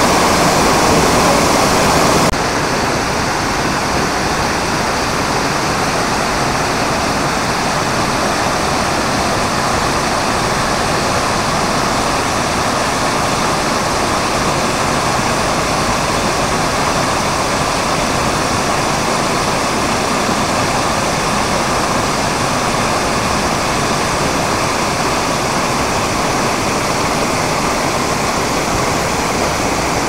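Steady rush of a wide, curtain-like waterfall about 10 m high pouring into a shallow plunge pool. The level steps down slightly about two seconds in.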